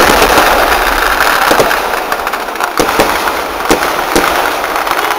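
Fireworks barrage: a dense, continuous crackle of many firecracker bursts, thinning after about two seconds into separate sharp bangs.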